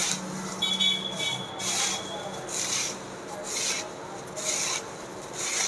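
Silicone spatula stirring dry, thin nylon poha (flattened rice flakes) with fried nuts and spices in a stainless steel bowl. Each stroke gives a dry rustling scrape, about one a second.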